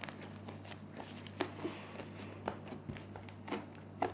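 Hands kneading and stretching fluffy glue-and-borax slime, with faint sticky clicks and pops about once a second.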